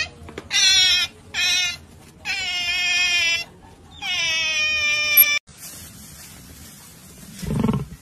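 Otters squealing while eating fish: four high, shrill calls in the first five seconds, the last two longer, about a second each.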